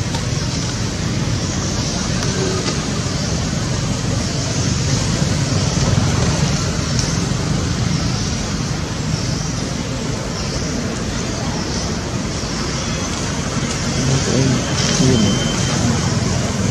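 Steady outdoor background noise: a low rumble under a high hiss that swells and fades every second or so.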